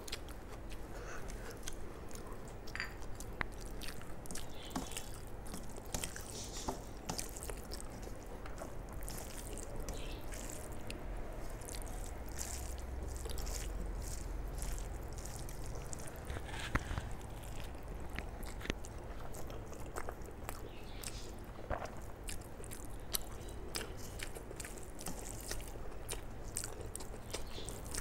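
Close-miked eating sounds: chewing and wet mouth noises with many small clicks, along with the squish of rice being mixed with curry by hand on a steel plate.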